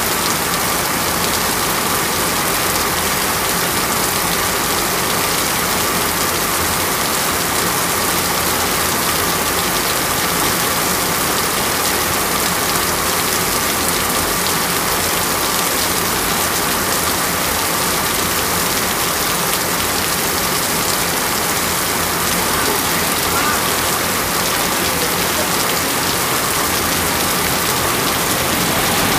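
Heavy rain falling, a steady dense hiss without let-up.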